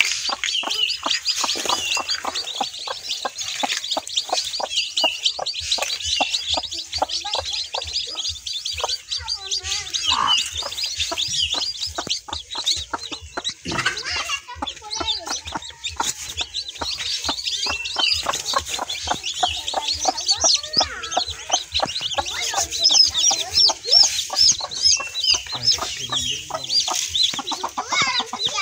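A group of newly hatched chicks peeping: a dense, unbroken stream of short, high cheeps, louder in the second half, over frequent small clicks and rustles.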